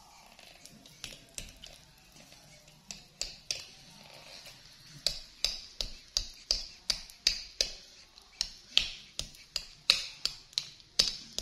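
Plastic drinking straws clicking and tapping against a small plastic drink bottle: a few scattered clicks, then a quicker run of about two to three sharp clicks a second from about five seconds in.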